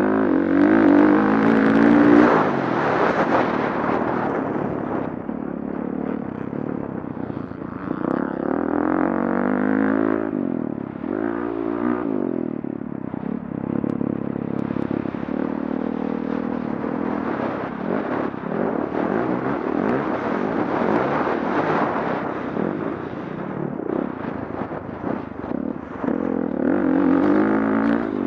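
Motocross dirt bike engine heard from on board while riding, revving up and down with the throttle. Its pitch climbs hard in the first couple of seconds, which is the loudest part, then eases off briefly about ten seconds in before picking up again.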